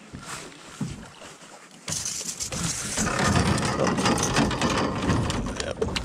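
Wind and handling noise rumbling on the microphone, starting suddenly about two seconds in, with scattered knocks and rattles of gear in an aluminium jon boat.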